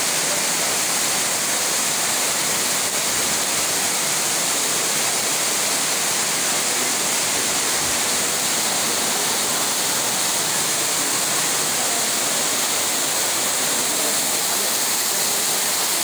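Waterfall close up: water pouring and spraying down a mossy rock face and splashing below, a steady, loud, bright hiss.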